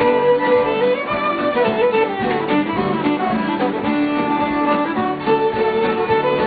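Fiddle playing a folk tune, with guitar accompaniment.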